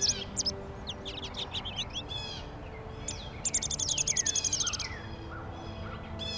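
Small songbirds chirping and calling in quick, high notes, with a fast high trill about three and a half seconds in that lasts just over a second.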